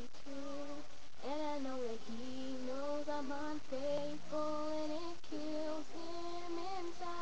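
A girl singing a slow ballad solo, holding long notes that bend and slide between pitches.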